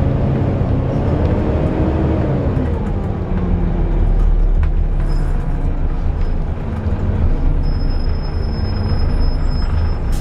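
Volvo B7TL double-decker bus with its D7 straight-six diesel running, the engine note rising and falling, with the loud hoover-like whir of its cooling fan. A thin high whine joins for about two seconds near the end.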